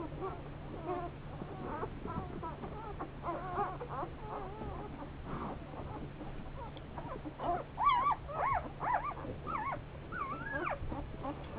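Newborn one-day-old Great Pyrenees–Anatolian Shepherd puppies squeaking and whimpering in short, wavering cries, several at once and louder after about seven seconds, over a steady low hum. The owners take the squealing for hunger.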